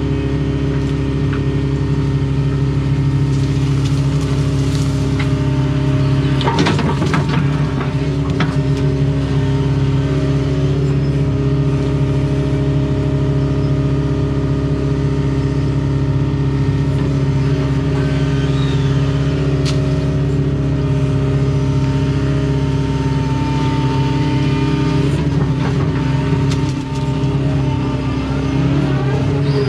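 Excavator's diesel engine running steadily under working load. Bursts of scraping and clanking come about six to eight seconds in and again near the end.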